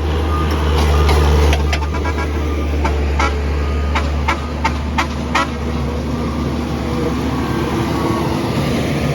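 Diesel engines of railroad track maintenance machines running as they roll past one after another, with a steady low drone. Between about one and a half and five and a half seconds in there are a string of sharp metallic clicks and clanks from their wheels on the rails.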